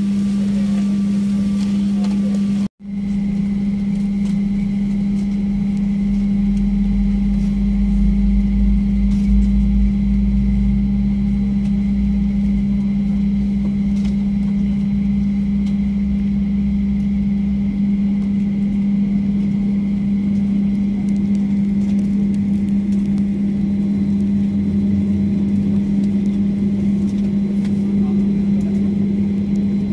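Cabin noise of a Boeing 737-800 airliner taxiing: a steady engine and air-conditioning hum, with a deeper rumble coming in for about twelve seconds. The sound cuts out for a split second about three seconds in.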